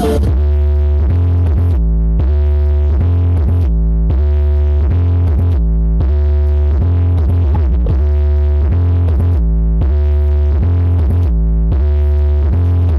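Electronic dance music played very loud through a large outdoor sound system's speaker stacks at a sound check: a heavy, sustained bass under a synth phrase that repeats about every two seconds.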